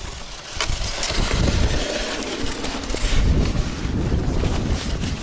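Sled being towed across bare ice, a continuous rough scraping rumble from its runners, with a few sharp clicks.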